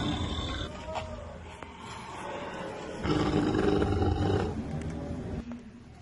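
Designed dinosaur roar sound effects for the ankylosaurid Euoplocephalus: a deep roar dies away within the first second, and a second loud roar comes about three seconds in, lasting about a second and a half.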